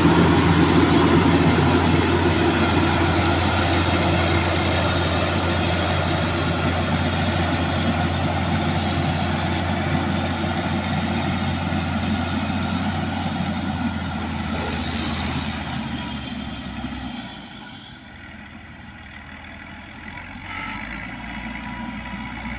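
Heavy diesel engine of a motor grader running steadily, then fading away over a few seconds about three quarters of the way through and staying much quieter after that.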